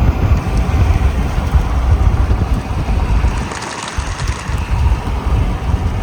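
Heavy wind buffeting on the microphone, an uneven low rumble over the rush of a moving car.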